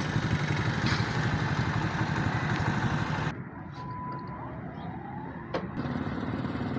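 Road vehicle engine idling with a steady low throb. About three seconds in it drops to quieter background with a faint high tone, and a hum returns near the end.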